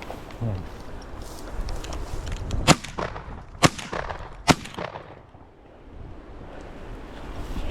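Three shotgun shots in quick succession, a little under a second apart.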